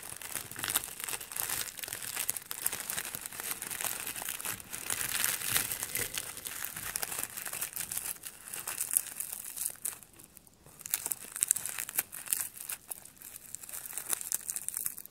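Scissors cutting through a crisp, crinkly sheet of dried laver (gim). The snipping and rustling crackle densely, with a short lull about ten seconds in.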